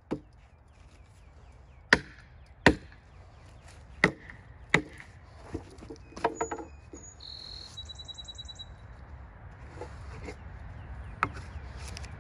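Axe chopping along the bark edge of a freshly milled pine cant: a string of sharp, woody blows, the loudest five in the first five seconds and softer strikes after. A brief high, rapidly pulsing chirp comes about seven seconds in.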